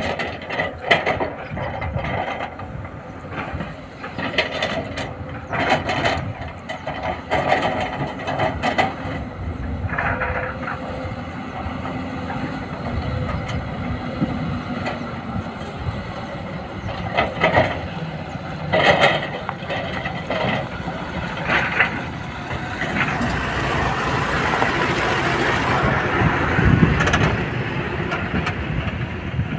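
Sany SY210 hydraulic excavator working, with irregular metallic clanks and knocks over a running engine; near the end a steadier rushing noise takes over.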